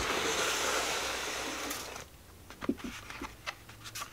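Bubble wrap and plastic packing rustling steadily for about two seconds as a product box is pulled out of a cardboard shipping box. It is followed by a few light taps and clicks from handling the box.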